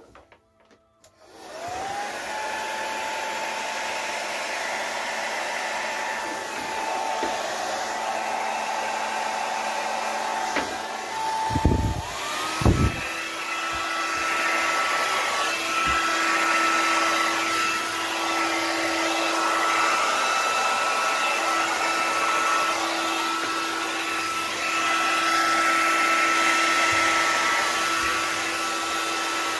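Handheld hair dryer blowing air over wet acrylic pour paint. It switches on about a second in with a rising whine and runs steadily. Just before the middle there are a couple of knocks, then it steps up to a higher, faster setting.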